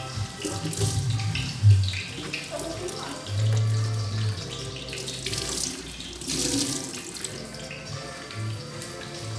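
Pastéis frying in a pan of hot oil, a continuous sizzle that swells and eases as they are turned with a fork.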